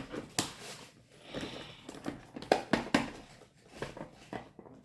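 Scattered light clicks and taps with a short rustle about a second in, from small plastic toy pieces and packaging being handled.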